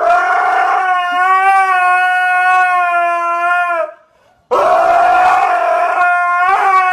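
A dog howling: one long, steady howl of about four seconds, then a second howl after a short pause that lifts in pitch near its end.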